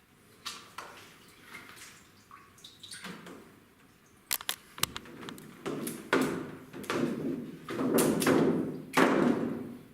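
Handling noise: a few faint ticks, then a quick cluster of sharp clicks about halfway through, followed by repeated rustling, scraping sweeps that grow louder toward the end and stop just before it.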